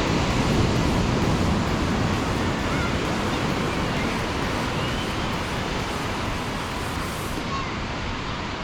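Ocean surf washing onto a beach, a steady rush, a little louder in the first couple of seconds.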